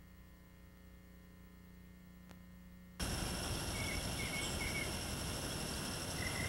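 Near silence with a faint steady hum, then about three seconds in an outdoor ambience cuts in suddenly: a steady background hiss with a few short, high chirps.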